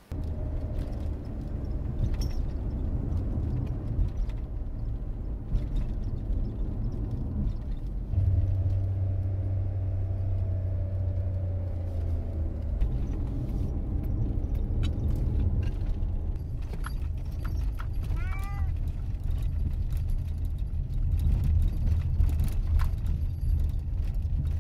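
Steady road and engine noise inside a moving car, with a low hum that swells for a few seconds about a third of the way in. A black cat meows once, briefly, about three-quarters of the way through.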